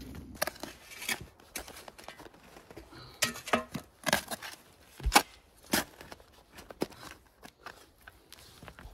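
Stones and gravel knocking and scraping as sandstone slabs are set down and a small hand tool digs into gravel and soil: irregular clacks and scrapes, the sharpest about five seconds in.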